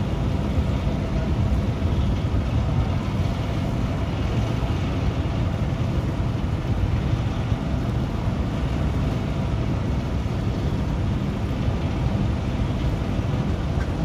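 A ship discharging a waterfall-like cascade of sand and water from a tall pipe over its bow into the sea: a steady, heavy rumble under a rushing, splashing sound that holds even throughout.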